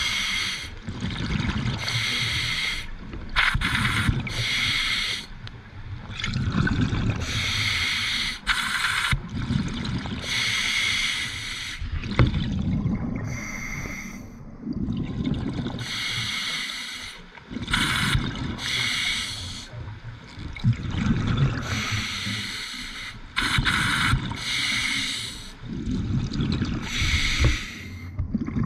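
Scuba diver breathing underwater through a regulator: a hissing inhale alternates with a low bubbling rumble of exhaled air, about every two and a half to three seconds.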